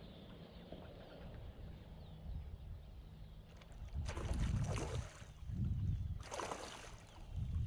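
Water splashing twice, about four and six seconds in, as a hooked carp thrashes at the surface beside the boat, over a low steady rumble.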